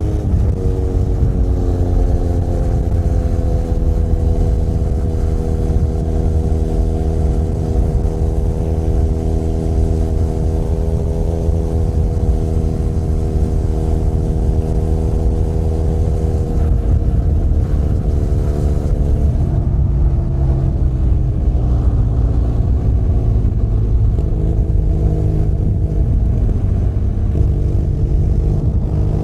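Benelli Leoncino 500 Trail's parallel-twin engine under way on the road. The pitch drops right at the start, as on an upshift, then holds steady at cruise. It falls slowly about two-thirds through as the throttle eases, and rises again in steps near the end.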